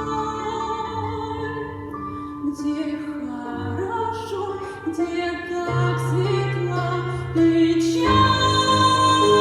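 Music in an operatic style: a singer holds long notes over instrumental accompaniment. The music swells louder about eight seconds in.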